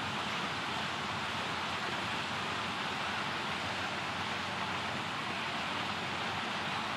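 Steady, even rushing noise with no distinct sounds in it.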